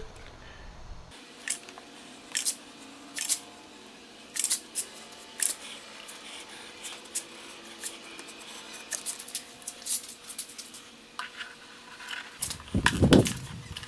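Irregular sharp snips and clicks, roughly one a second, from hand work on the outboard cowling's rubber seal. A couple of louder low thumps come near the end.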